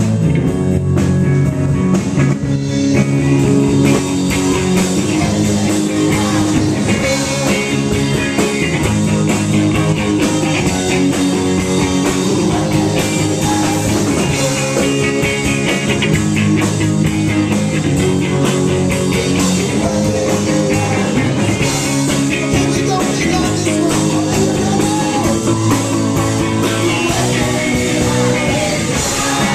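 Live rock band playing loudly and steadily: electric guitar and bass over a regular drum beat.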